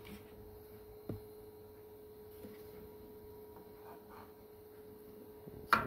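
Handling noise as a loudspeaker woofer is lifted out of its wooden cabinet: a small click about a second in and a sharp knock near the end, over a faint steady hum.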